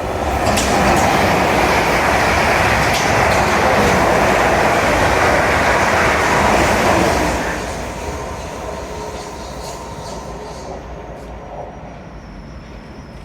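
A train passing close by, a loud rush of wheels on rail for about seven seconds that then dies away as it recedes.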